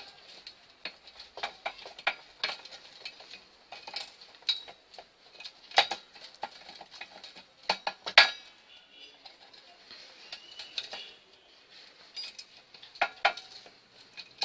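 Irregular metal-on-metal clicks and clinks as a bicycle bottom bracket axle, ball-bearing retainer and bearing cup are handled and fitted by hand. The two loudest knocks come about six and eight seconds in.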